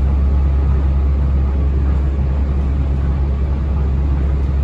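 Cabin noise of a Yui Rail monorail car under way: a steady low rumble with an even hiss above it.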